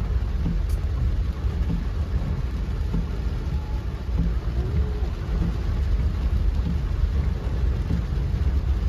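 Rainstorm noise: a loud continuous low rumble with an even hiss of rain above it.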